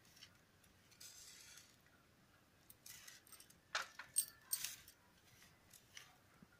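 Fingers mixing crumbly flour for samosa dough in a stainless steel plate: faint rubbing with a few sharp scrapes and clinks against the metal, most of them between about three and five seconds in.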